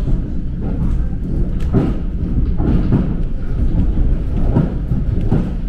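Running noise heard inside a moving electric commuter train: a loud, steady low rumble of wheels on rails, swelling louder several times.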